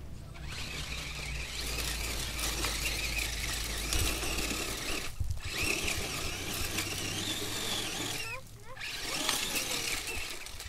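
Formula offroad buggy's engine running hard at high revs, with a loud wavering high-pitched squeal over a low drone. It drops off briefly about halfway through and again near the end.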